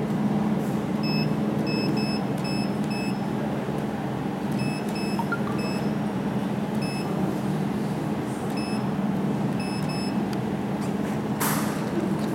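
Touchscreen control panel of a jewelry laser welding machine beeping once for each key press: a dozen or more short, identical electronic beeps in quick runs as settings are keyed in, over a steady low hum. There is a short burst of noise near the end.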